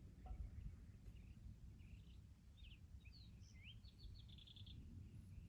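Near silence with faint birdsong: a few quick chirps and a short rapid series of notes about halfway through.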